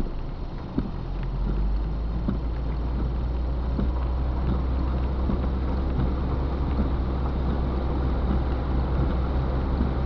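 Car driving slowly through a flooded, rain-wet street, heard from inside the cabin: a steady low rumble with water swishing under the tyres and light ticks of rain.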